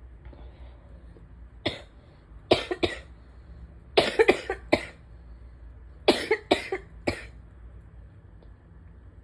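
A person coughing from an allergy-driven asthma flare. One cough comes first, then two, then two quick fits of three or four coughs each.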